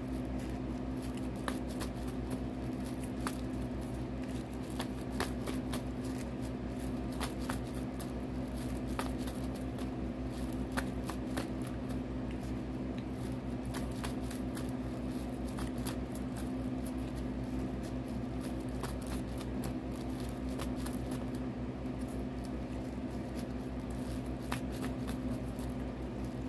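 Tarot cards being shuffled by hand: a long run of soft, irregular card clicks and flicks. A steady low hum sits underneath.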